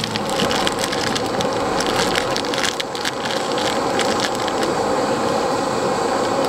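A small camp stove burning under a kettle: a steady rushing noise with frequent sharp crackles.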